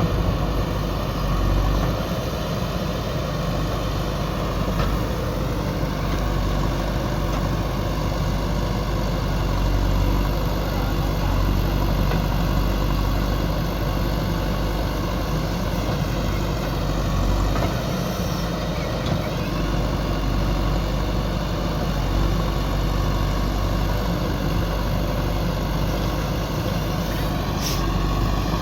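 Heavy diesel engine running steadily, its pitch sagging and recovering about two-thirds through, with a short click near the end.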